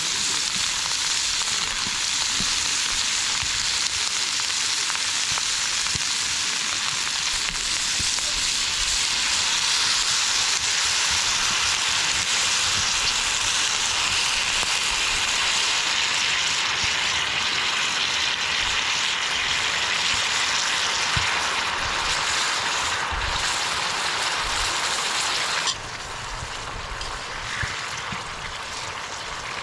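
Food sizzling in a hot cast-iron Dutch oven lid used as a frying pan: a steady, dense hiss that drops suddenly to a quieter sizzle near the end.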